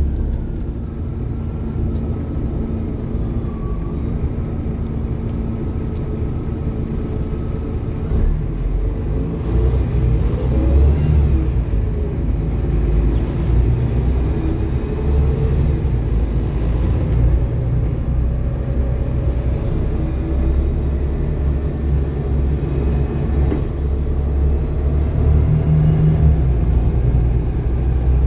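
Volvo B7TL double-decker bus's 7.3-litre Volvo D7C diesel engine running as the bus drives, with faint whines from the drivetrain rising and falling in pitch. It gets louder about eight seconds in as the bus pulls harder.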